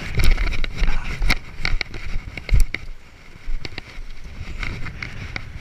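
Wind rumbling on the camera microphone, with heavy knocks and scrapes from the camera and shoes as the hiker clambers over the breakwall's stone blocks. The loudest thumps come just after the start and about two and a half seconds in. Waves wash against the blocks underneath.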